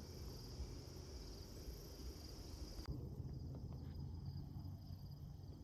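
Steady insect chorus, a high even trill, over a low rumble. About three seconds in the sound changes abruptly and the chorus becomes much fainter.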